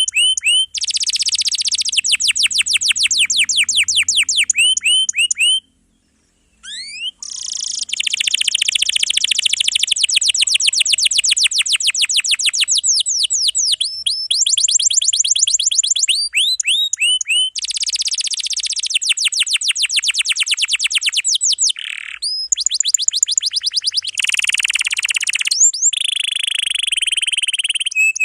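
Domestic canary singing long rolls: fast trills of rapidly repeated, sweeping notes strung into long unbroken phrases. There is a brief pause about six seconds in.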